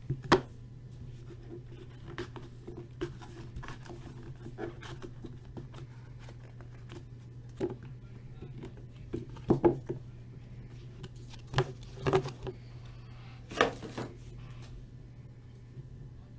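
Trading cards and their packaging being handled: scattered sharp clicks and rustles, a cluster of them in the second half, over a steady low hum.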